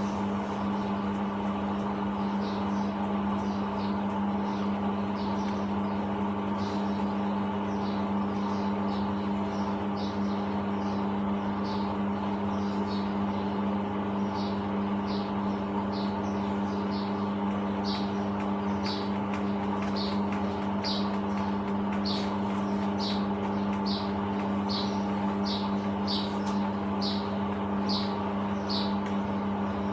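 Samsung 6.5 kg top-loading washing machine running mid-cycle with a steady hum. Over it, a short high chirp repeats at an even pace, roughly three every two seconds, starting about two seconds in.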